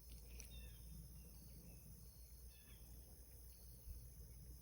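Near silence: faint outdoor pond-side ambience, with a few short high chirps spaced about a second apart.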